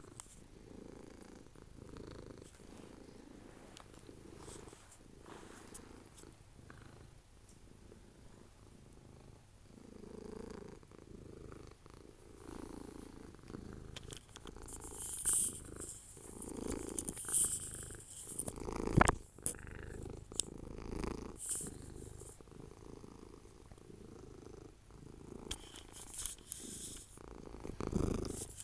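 A black domestic cat purring steadily right at the microphone, with rustling and a sharp knock about two-thirds of the way through as its fur rubs against the camera.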